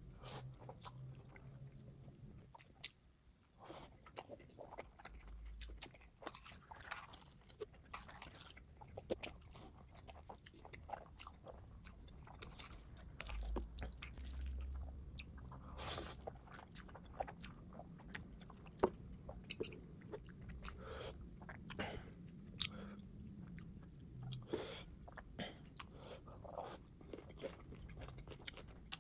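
Close-up mouth sounds of a person biting into and chewing food, with irregular crunchy snaps and wet chewing, played at double speed.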